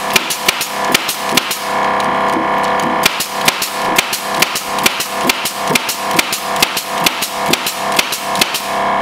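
Pneumatic brad nailer firing rapidly into treated lumber, a quick string of sharp shots roughly three a second. Under it, the Milwaukee M18 2-gallon cordless air compressor runs steadily, refilling as the nails drain its tank.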